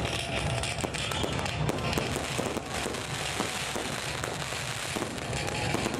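Aerial firework shells bursting in quick succession: a dense, continuous run of bangs and crackling.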